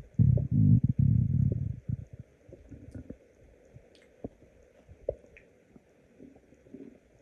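Hungry human stomach growling: a loud, low, wavering rumble lasting about two seconds, then quieter, with short scattered clicks.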